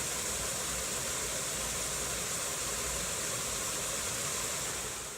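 Steady, even hiss of noise with no distinct events, fading out near the end.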